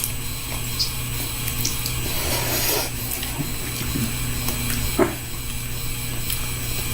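Noodles being eaten with chopsticks from a bowl: a few light clicks and a brief slurp about two and a half seconds in, over a steady background hum.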